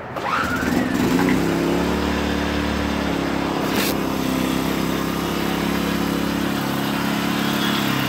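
Homegear portable inverter generator's small gasoline engine catching from a recoil-starter pull, rising in pitch over the first second, then running steadily.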